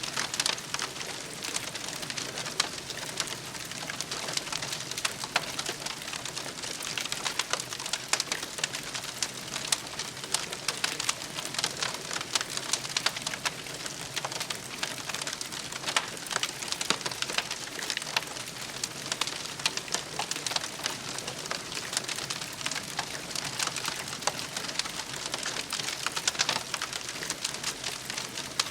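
Campfire crackling steadily, with dense irregular pops and snaps over a soft hiss.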